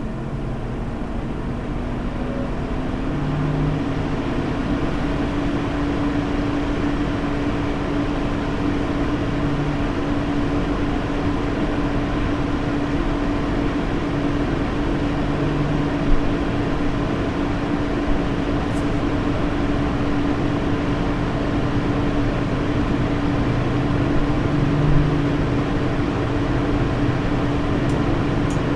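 Stock Lian Li case fans of a Lian Li 217 INF spinning up to full speed. They make a rush of air with a steady droning tone that rises in pitch over the first few seconds and then holds. This is the resonance noise the owner blames on the case's stock fan setup.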